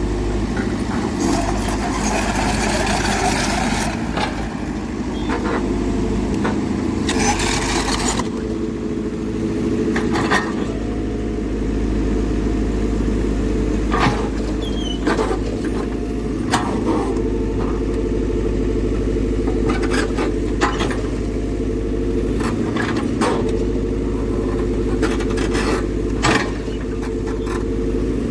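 Heavy diesel construction machine running steadily, with a stretch of hissing noise early on, another about seven seconds in, and scattered sharp knocks and clanks throughout.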